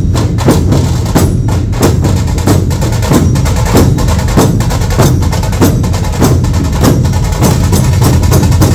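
A large troupe of Maharashtrian dhol drums played together, loud and continuous, with sharp stick strokes landing about twice a second over a heavy, booming drum bed.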